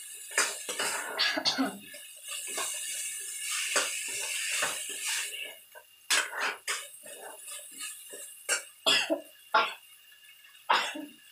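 A steel spoon stirring chopped okra in a kadai: a run of scrapes and knocks against the pan, over a hiss of frying that fades out about halfway through.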